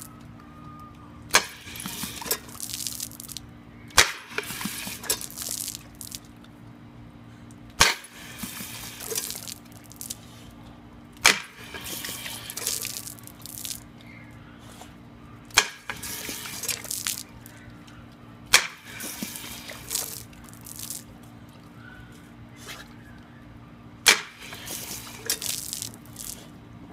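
Step-on paw-pedal dog water fountain worked by a dog's paw: a sharp click of the pedal, then a spurt of hose water spraying for a second or two, about seven times at irregular intervals of a few seconds. A steady low hum runs underneath.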